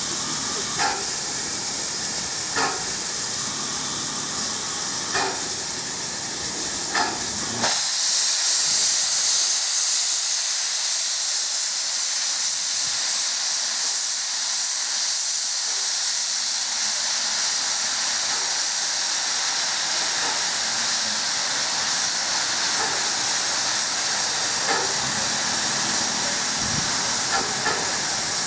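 Steady rushing hiss of a train passing at speed, with a faint light tap every couple of seconds at first. About eight seconds in, the low rumble drops out abruptly and a brighter, higher hiss carries on.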